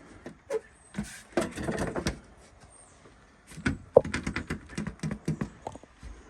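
Clattering clicks and knocks of an old Friedrich window air conditioner's housing and cover being handled and worked loose during disassembly, in two bursts of activity.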